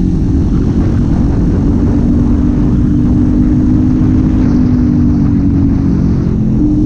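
Kawasaki Z400's 399 cc parallel-twin engine running at steady cruising revs under way, its pitch dipping slightly and then rising again near the end.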